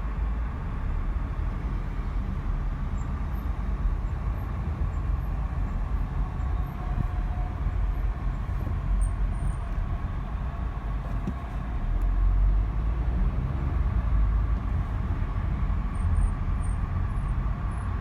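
2019 Acura RDX driving, with steady road and engine noise heard from inside the cabin and short high-pitched brake squeals about halfway through and again near the end. The squeal is an ongoing problem that, by the owner's account, repeated pad and rotor replacements have supposedly not cured.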